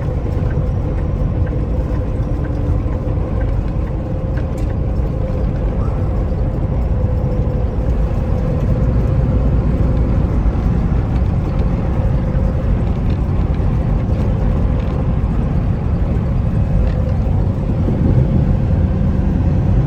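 Steady engine and road noise inside a semi truck's cab at highway speed: a constant low rumble with a faint steady drone.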